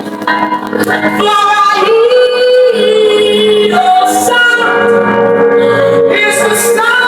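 Worship song: a woman's voice singing long held notes over a steady instrumental accompaniment.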